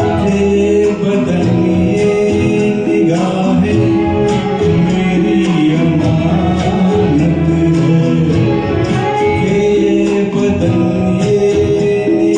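Karaoke performance of a Hindi film song: long held sung notes over a backing track with strings and guitar.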